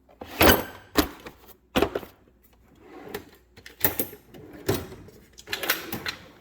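Metal hand tools clanking and rattling as they are moved around in a steel toolbox drawer: a string of sharp clanks about a second apart.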